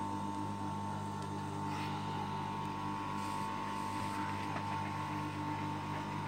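Steady electric hum of an industrial sewing machine's motor running idle, a low drone with a higher steady whine above it, with faint rustling as the fleece fabric is handled.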